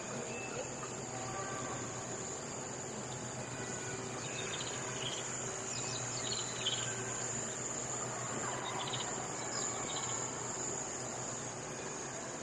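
Steady, high-pitched insect chorus of crickets or similar insects trilling without a break, with a few short bird chirps in the middle.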